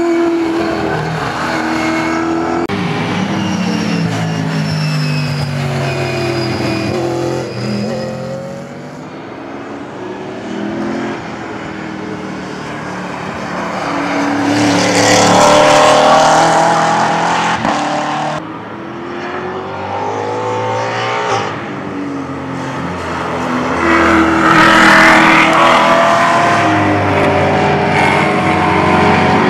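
V8 saloon race cars running at speed, several engines at once, their pitch rising and falling through gear changes as they pass; the loudest passes come about halfway through and again near the end.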